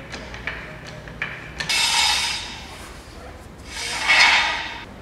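A metal jack stand scraping and sliding over a garage floor as it is pushed into place under a raised car: two rasping scrapes of about a second each, with a few light knocks before them.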